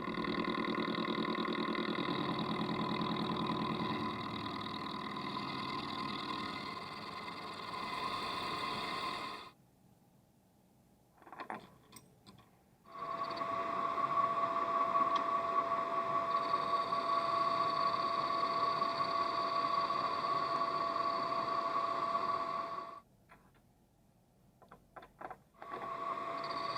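Manual metalworking machine tool running with a steady whine. It shuts off about a third of the way in, is briefly jogged a couple of times, runs again, stops once more and restarts near the end.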